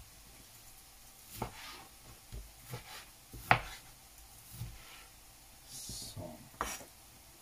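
Kitchen knife cutting chicken breast into cubes on a cutting board: irregular knocks of the blade striking the board, the loudest about three and a half seconds in.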